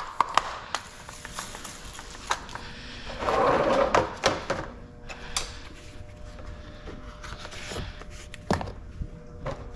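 Scattered clicks and knocks of hands and tools working at a car's door window, with a short hiss about three seconds in.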